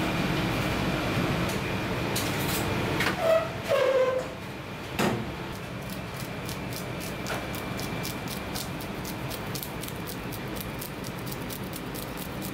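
Knife blade scraping the scales off a whole fish on a cutting board: a run of light rasping ticks that grows denser in the second half. Before it, a steady background rumble, with two short squeaks and a single knock about five seconds in.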